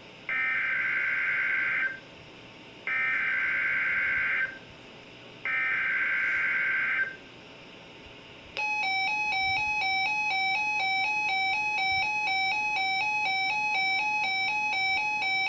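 Emergency Alert System SAME header: three identical buzzing digital data bursts, each about a second and a half long with short gaps between them. About eight seconds in, a loud continuous alert tone begins, rapidly alternating between two pitches, the attention signal that precedes a new warning message.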